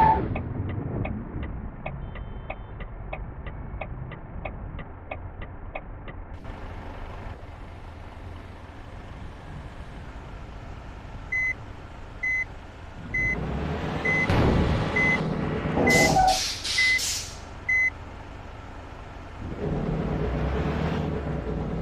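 Tour bus manoeuvring: a fast ticking at first, then its reversing beeper sounding about once a second over the running engine, with two short bursts of air-brake hiss during the beeps and the engine louder near the end.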